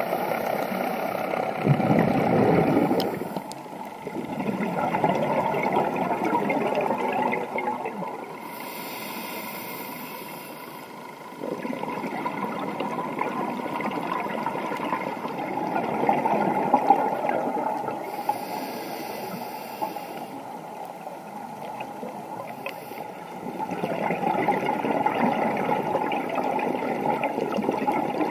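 Muffled underwater sound picked up through a dive camera's housing: a continuous rushing, gurgling water noise that jumps in level a few times. Twice a brief high hiss rises above it, a scuba diver drawing breath through a regulator.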